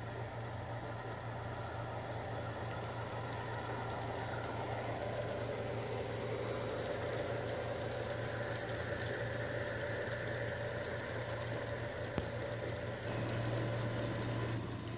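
G-scale model freight train rolling past on garden railway track: wheels rolling and clicking over the rail joints as the cars go by, over a steady low hum.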